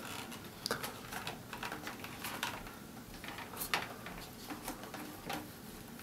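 Scattered light clicks and taps of the HDMI cable and small rig fittings being handled as the cable is unplugged from the monitor and freed from the camera rail rig.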